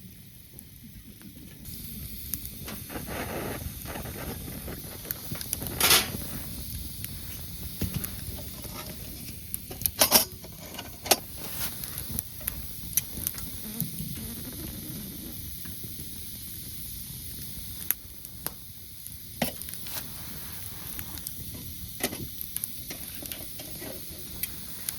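Food frying in a hot pan: a steady sizzle sets in about two seconds in, with sharp spitting pops scattered through it.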